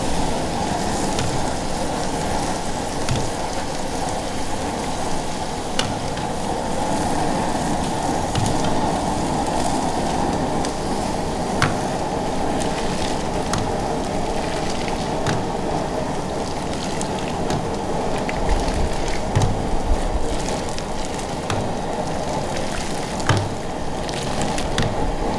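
Liquid ladled over a hanging whole suckling pig, splashing and running off its skin back into a steel wok, over a steady rushing noise. Scattered sharp clicks of the metal ladle against the wok.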